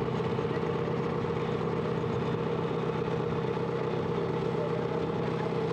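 A boat engine running at a steady, unchanging pitch.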